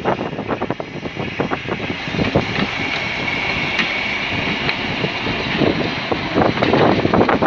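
Sentinel four-wheel diesel-hydraulic shunting locomotive passing close by at walking pace, its engine running, with wheels clicking over the rails and a high squeal for a few seconds in the middle.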